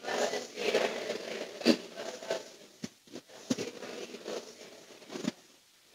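Quiet room noise from a crowd standing in a large hall, with a few soft knocks and shuffles. It drops to silence just before the end.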